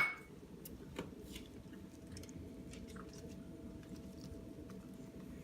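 Fresh basil leaves being cut up: faint, scattered small snips and ticks, with one sharper click about a second in.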